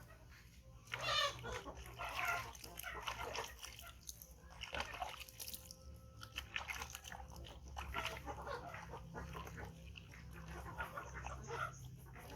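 Baby monkey giving several short, high-pitched squeaking calls, the loudest about a second in, among scattered rustling and small crunching sounds.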